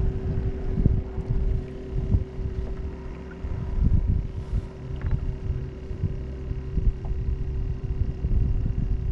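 Wind buffeting the microphone, a gusty low rumble over a steady low hum, with a few faint light knocks.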